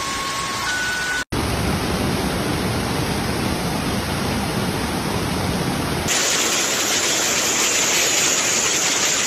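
Floodwater rushing, a steady full-range rushing sound, first water cascading over a ledge and then a fast muddy torrent with a brighter hiss from about six seconds in. Over the first second a car alarm's steady tones sound, cut off by a brief dropout.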